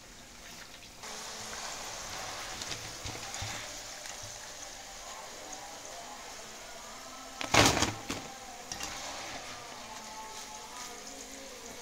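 Potato fries deep-frying in hot oil: a steady sizzling hiss that starts about a second in. A little past halfway there is one loud, brief knock, as the fries are stirred and lifted with a wire skimmer.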